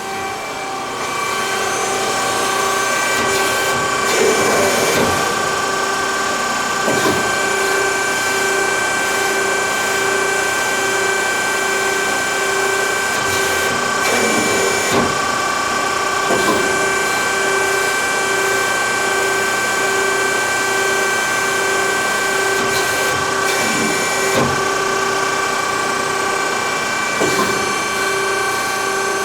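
Amada 138-ton CNC hydraulic press brake running: a steady hydraulic pump hum with a constant whine and a pulsing tone, and several brief louder moments as the machine cycles.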